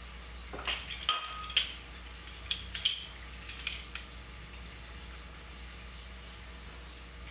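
Metal kitchen utensils clicking and clinking against a pan a handful of times in the first four seconds, over a faint steady sizzle of guanciale frying in olive oil.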